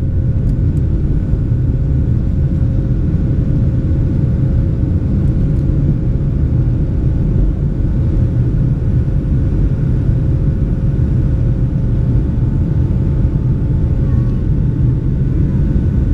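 Jet airliner's engines at takeoff power through liftoff and initial climb, heard inside the cabin over the wing: a loud, steady low rumble with a few steady whining tones on top.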